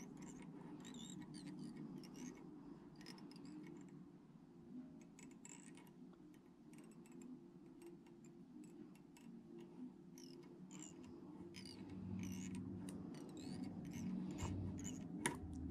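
Faint handling noises of fly-tying thread being wrapped from a bobbin around the head of a fly on the hook: soft scattered ticks and rubs over a low steady hum, with one sharper click near the end.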